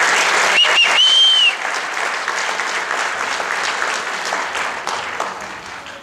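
Audience applauding and cheering after a dance number, with a whistle of two short notes and then a longer held one about a second in; the applause fades toward the end.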